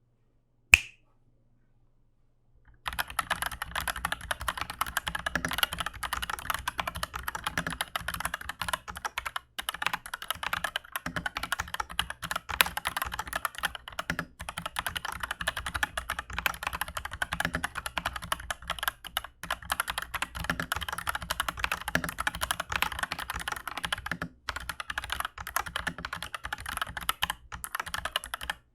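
Typing on an Aflion AF82 75% mechanical keyboard fitted with Aflion Iceberg linear switches on a steel plate: dense, continuous key clacks. The typing starts about three seconds in, after a single sharp click and a short silence.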